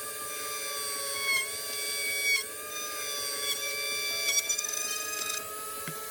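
Small high-speed electric drill running with a steady high whine as it bores a hole through the model ship's hull. Its pitch dips briefly under load a few times.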